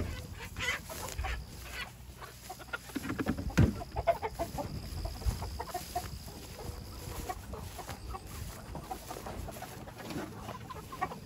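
Flock of pastured chickens clucking, many short calls scattered throughout.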